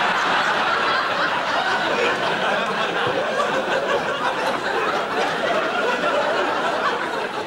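Studio audience laughing, a long, steady wave of laughter that eases off slightly near the end.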